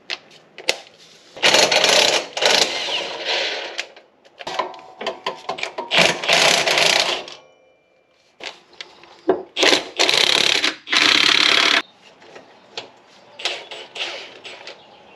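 Impact wrench hammering on 17 mm bolts while the rear differential is being removed, in three bursts of about two seconds each. Small clicks and clanks of hand tools come between the bursts.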